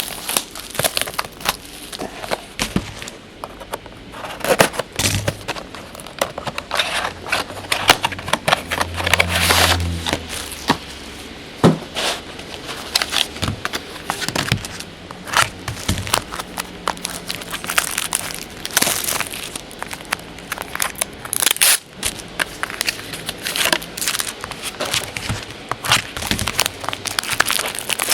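Plastic shrink wrap and packaging on a trading-card hobby box crinkling and tearing as it is unwrapped, with a steady run of irregular crackles and clicks.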